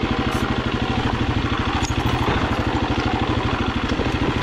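Dual-sport motorcycle engine running steadily at low revs, with a few sharp clicks and clatters.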